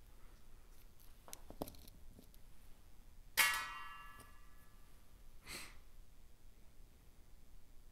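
Faint scratching and handling as a tire marker is worked along a rubber patch on a tire sidewall. About three and a half seconds in comes one sharp ringing clank that dies away over about a second, and a short rustle follows about two seconds later.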